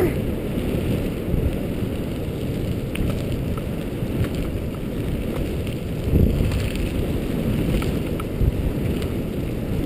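Wind buffeting a helmet-mounted microphone over the steady rumble of tyres rolling fast on a gravel trail, with a brief jolt about six seconds in.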